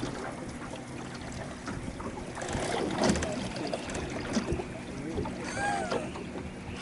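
Steady low hum of a boat's motor, with a short cluster of clicks and rattles about three seconds in.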